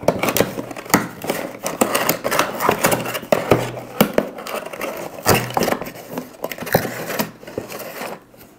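Cardboard box and its inserts being handled and rummaged through: paper-like rustling and scraping with frequent sharp clicks and taps, dying away near the end.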